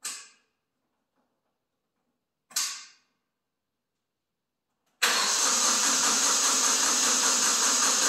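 Two short sharp sounds, then about five seconds in a Kubota B2301 compact tractor's three-cylinder diesel engine is started: a sudden, loud, steady engine noise sets in and keeps going. This is the start-up after a fuel filter change.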